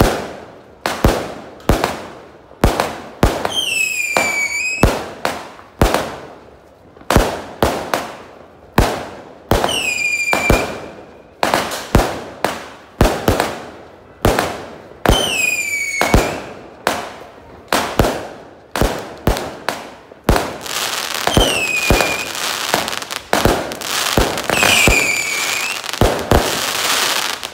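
Fireworks going off in a rapid string of bangs, with a shrill whistle now and then; after about twenty seconds the shots come faster and a crackling fills the gaps between them.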